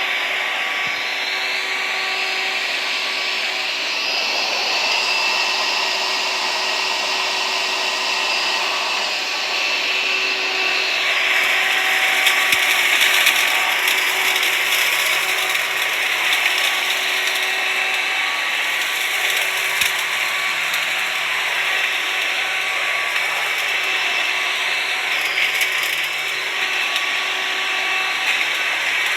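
Hoover vacuum cleaner running steadily, its motor whine and airflow hiss holding level, with the tone shifting slightly a few times.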